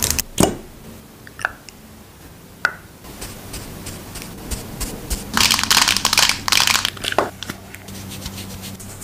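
Close-miked ASMR makeup sounds: a few sharp taps and clicks on a makeup tube, then a makeup brush scratching and swishing close to the microphone, loudest between about five and seven seconds in.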